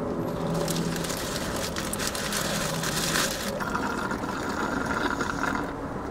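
Paper food wrapper crinkling, then a fountain drink slurped through a straw for about two seconds, over a steady low hum in the truck cab.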